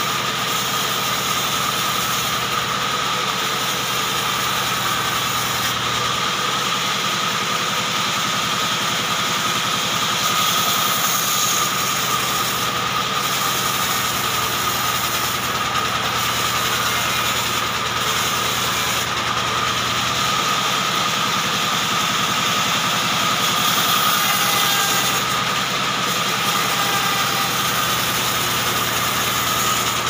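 Large band saw running steadily, its blade cutting lengthwise through a short hardwood log as it is pushed along the table. A constant high whine over an even hiss, with no pauses.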